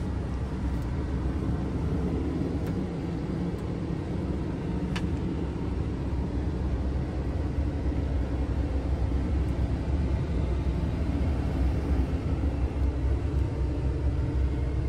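DAF XF480's PACCAR MX-13 six-cylinder diesel idling, a steady low rumble heard inside the cab. A single brief click sounds about five seconds in.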